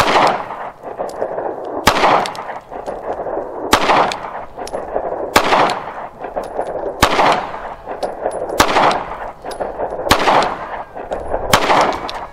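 Smith & Wesson Shield 9mm pistol fired eight times at a slow, steady pace, about one shot every one and a half to two seconds, each shot followed by a ringing echo. It is firing Federal Syntech polymer-coated 9mm and cycles every round.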